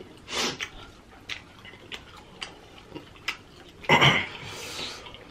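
Close-miked eating sounds from sauced chicken wings: wet lip smacking and chewing clicks, with two louder, brief mouth sounds, one just after the start and one about four seconds in.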